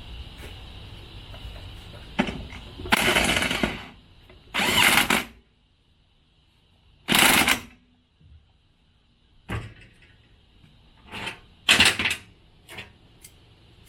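Tools at work reassembling a Toro walk-behind mower's self-propel drive: a series of short, loud mechanical bursts about half a second to a second each, with small clicks between them.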